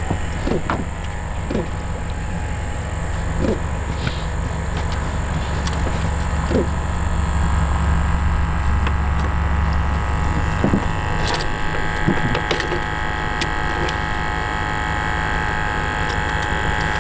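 A steady mechanical hum with a constant whine, from a small motor running, with a dozen or so short knocks and clicks. About eleven seconds in, the low part of the hum drops and a higher whine comes up.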